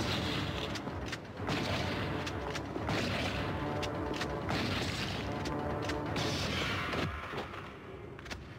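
Movie gunfire: a lever-action shotgun blasting again and again, about once a second, each blast echoing down a narrow concrete corridor over dramatic orchestral film score. The shots stop about seven seconds in.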